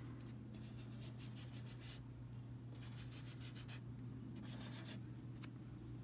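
Felt-tip marker scratching across paper in three bursts of quick back-and-forth strokes, drawing wavy lines. A steady low hum runs underneath.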